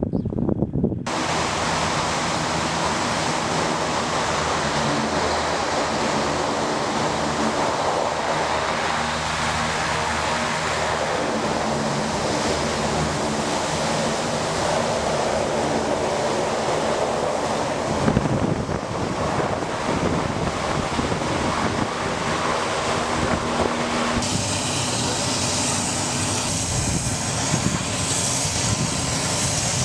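LCAC military hovercraft's gas turbines, lift fans and shrouded propellers running: a loud, steady noise with several steady low droning tones. It starts abruptly about a second in, and its character changes suddenly about 18 and 24 seconds in.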